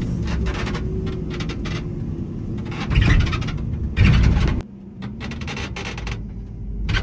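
Vehicle running while pulling into a parking spot, a steady low engine and road hum with loud knocks about three and four seconds in. The hum drops away abruptly about four and a half seconds in.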